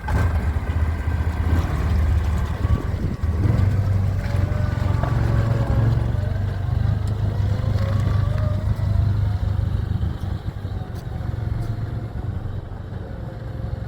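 Engine of an Argo eight-wheel amphibious vehicle running as it drives away, a steady low drone that fades somewhat near the end.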